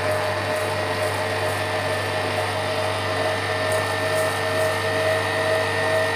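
Electric stand mixer running steadily at speed, its motor whining as the whisk beats eggs in a stainless steel bowl while sugar is added gradually.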